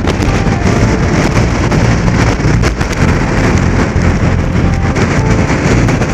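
Violent storm wind of about 29 m/s buffeting the microphone in a dense, steady rush with crackling gusts, over heavy surf breaking on the rocks.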